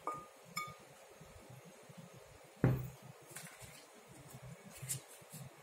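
Hard-anodized aluminium non-stick pans being handled and set down: a few light clinks that ring briefly, and one louder knock about two and a half seconds in.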